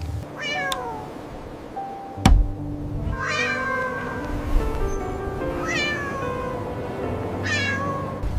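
A cat meowing four times, each meow falling in pitch, about one every two seconds, with a single sharp knock between the first and second, over background music.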